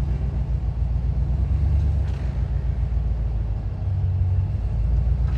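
Jeep engine running steadily on the trail, a low drone with small rises and falls in level.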